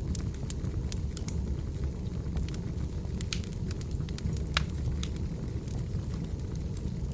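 Wood fire burning: a steady low rumble of flames with scattered sharp crackles and pops, the loudest pops a little after the middle.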